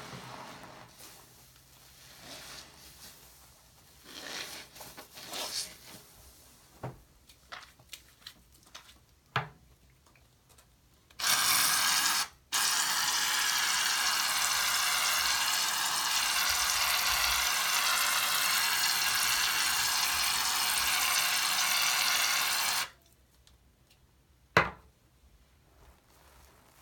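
A foamy bath sponge squeezed in a sink of suds, making soft wet squishes, then an aerosol can of shaving cream spraying onto the sponge with a loud, steady hiss for about ten seconds, broken once briefly just after it starts. One sharp knock near the end.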